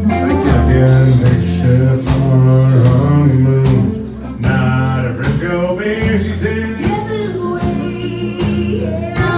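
Live country band playing a song: acoustic and electric guitars, electric bass and drums under sung vocals.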